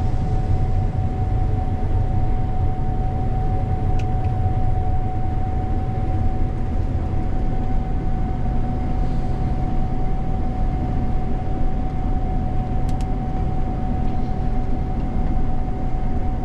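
Big farm machine's diesel engine running steadily, a low rumble with a constant whine held on one pitch, and a couple of faint ticks.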